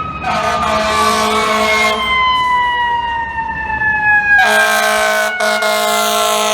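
Fire truck air horn blasting twice: a short blast just after the start and a long one from about two-thirds of the way through, with a brief break. Under it, the truck's siren wails and slowly falls in pitch.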